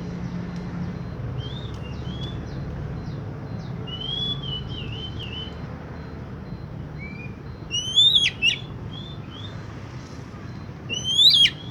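Oriental magpie-robin (kacer) singing: scattered short whistled notes that glide up and down, with louder sweeping whistle phrases about eight and eleven seconds in, over a steady low hum.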